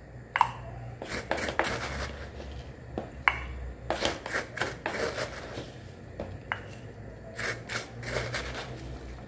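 A cup scooping and scraping through dry corn flour: irregular short scrapes and taps over a low steady hum.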